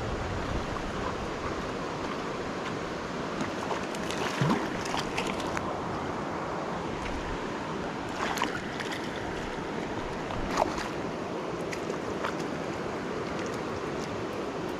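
Steady rush of flowing river water, with a few short clicks about four, eight and ten seconds in.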